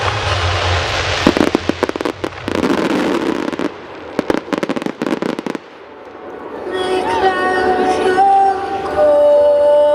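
Display fireworks bursting and crackling over a music soundtrack, with a rapid run of bangs before the midpoint. The firing stops a little past halfway, and music with long held notes carries on alone.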